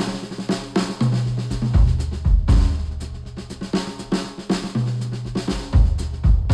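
Instrumental music with a drum kit and bass, played back through HIFIMAN Sundara planar-magnetic headphones and recorded by microphones at the earcups. Kick, snare and hi-hat keep a steady beat under sustained low bass notes.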